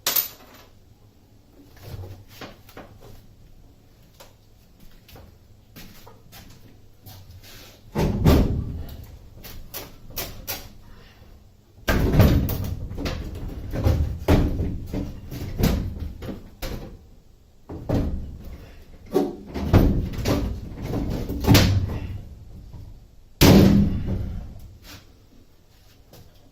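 Metal clunks, knocks and rattles from work on a school bus's rear air-conditioning unit as it is unbolted and propped in place. Scattered light ticks at first, then stretches of loud banging from about a third of the way in, with a last heavy clunk near the end.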